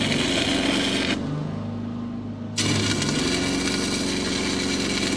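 Electric arc welding a steel gusset in place: the arc's steady hiss, which stops about a second in and strikes up again a second and a half later. Quiet background music underneath.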